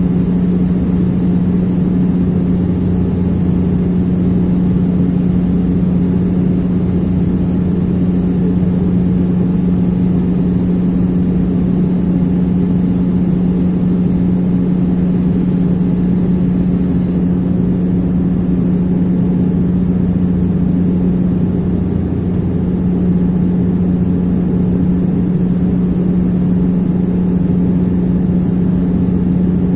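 Aircraft engines droning steadily in flight, heard from inside the passenger cabin: one unchanging low hum over a rushing noise.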